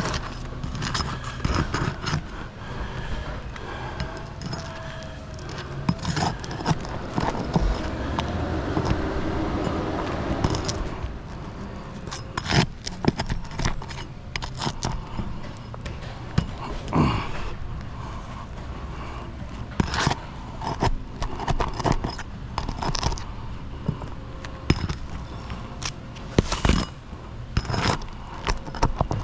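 Repeated scraping, clicking and knocking of hand tools working at asphalt shingles to break their seal, with a wavering hum for a few seconds near the middle.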